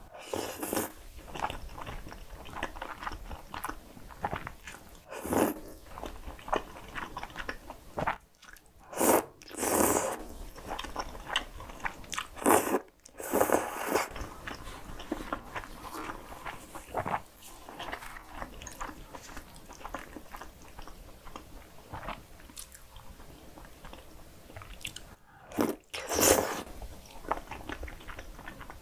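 Close-miked eating of a cream pasta: the noodles are slurped in several loud bursts, with wet chewing and small mouth clicks between.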